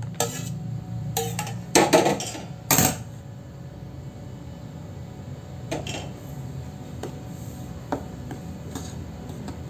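A steel pan and spatula clinking and knocking against a plastic strainer and bowl as melted jaggery is poured and scraped out. There are several sharp clatters in the first three seconds, then a few softer taps, over a steady low hum.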